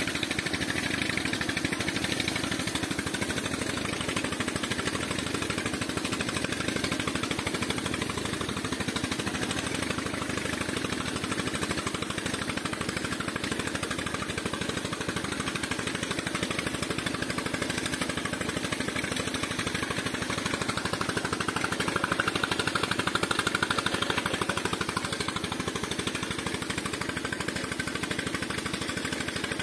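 An engine running steadily with a fast, even chugging, over sand-and-water slurry gushing from a pump pipe into a dump truck's bed and draining out over the tailgate.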